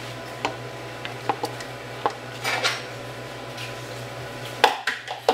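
Kitchenware clinking and knocking: a few light taps and clicks, then a louder clatter near the end as an emptied plastic mixing bowl is tossed down, over a steady low hum.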